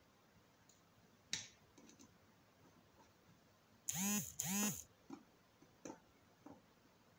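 Small precision screwdriver working a side screw of an Oukitel WP6 phone's case. About four seconds in there are two short, raspy squeaks, each rising and falling in pitch, followed by a few light clicks.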